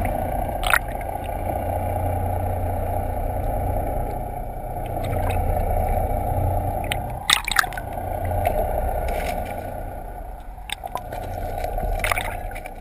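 Boat engine running steadily with water sloshing and gurgling against the hull, and a few sharp knocks.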